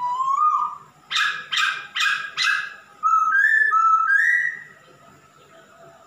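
Male Poksay Hongkong (masked laughingthrush) in full song. A whistled note rises at the start, then four harsh, rasping notes come in quick succession, then more clear whistled notes, and the song stops about five seconds in.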